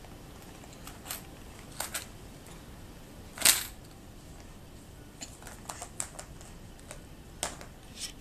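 Plastic Easter eggs clicking and tapping as a baby handles them: scattered sharp clicks, several in a quick run between about five and six seconds in, the loudest about three and a half seconds in.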